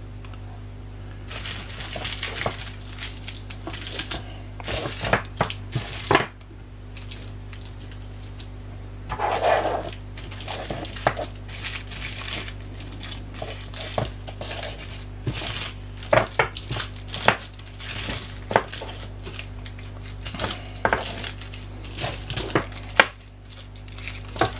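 Dishwasher tablets being counted out by hand: an irregular run of light clicks and taps as they are picked up and set down, with crinkling now and then.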